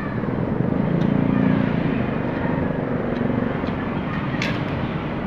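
Motor vehicle engine noise swelling and fading over a steady rumble, with a few sharp clicks near the end.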